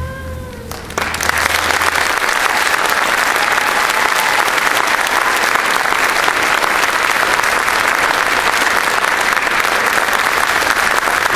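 The last held note of a string orchestra fades out, and about a second in the audience breaks into steady applause.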